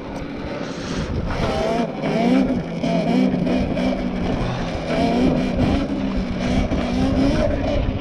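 Apollo RFN electric dirt bike's motor whining under throttle, its pitch climbing about two seconds in and then rising and falling as the rider works the throttle. Wind buffets the microphone throughout.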